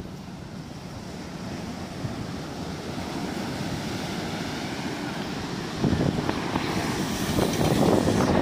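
Wind buffeting the microphone over rushing sea water, growing steadily louder, with heavier buffeting from about six seconds in.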